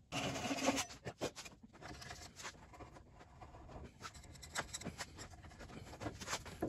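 A sharp hand chisel paring a wooden dowel stub flush with the face of a timber frame: a run of short, irregular scraping cuts.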